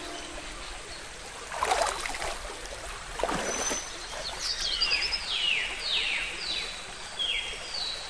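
Outdoor ambience with a steady background hiss. Two brief rushing swishes come about two and three seconds in, then a bird calls a run of about six falling whistled notes.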